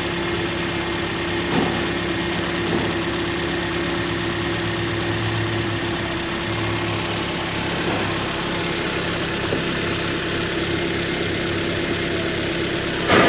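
Toyota 2ZR 1.8-litre four-cylinder engine of a 2011 Corolla idling steadily, with a sharp knock just before the end.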